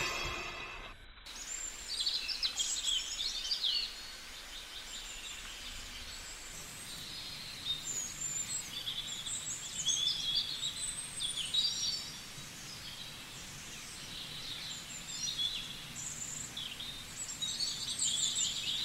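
Several birds chirping and calling in short high-pitched bursts over steady outdoor ambience, after background music cuts off about a second in.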